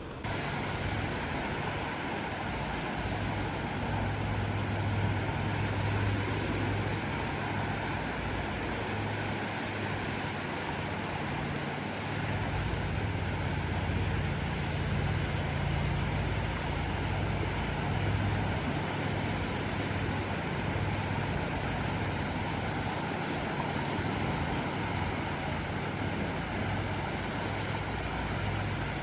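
Steady engine drone over a continuous rushing noise.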